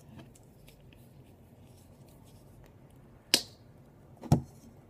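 A plastic paint bottle being handled: faint ticks, then two short sharp clicks about three and four seconds in.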